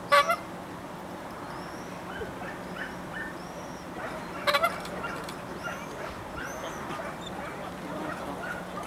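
A dog barking: a sharp bark just after the start and a quick double bark about four and a half seconds in, with short high-pitched whines and yips in between.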